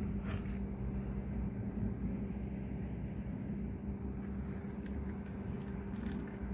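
Steady low mechanical hum holding one unchanging pitch, with a few faint clicks.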